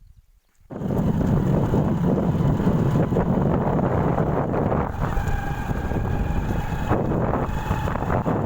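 Wind rushing over the microphone of a moving 110i motorcycle, setting in abruptly about a second in, with a faint engine tone showing partway through.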